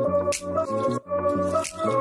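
Background music: sustained chords over a bass line that moves in steps, with an occasional sharp hit on the beat.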